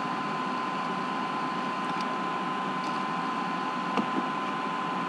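Steady background noise: an even hiss with a thin steady whine running through it, and a single click about four seconds in.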